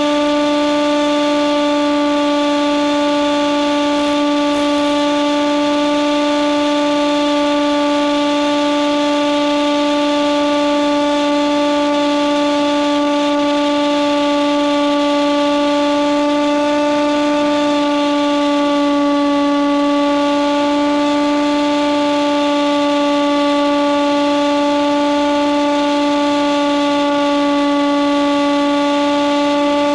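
Electric motor and propeller of a Nitroplanes Hawk Sky RC plane heard from on board in flight: a steady, loud droning hum at constant throttle, its pitch wavering slightly partway through.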